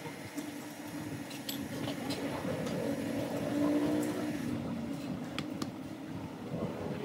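A motor vehicle engine humming steadily, swelling to its loudest a little past the middle and then easing off, with a few light metal clicks as a motorcycle engine's clutch assembly is handled and pressed into place.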